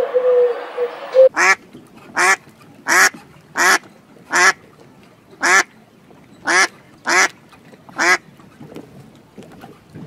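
A pigeon's coo ends about a second in, then a duck quacks nine times in a steady series, roughly one quack every second.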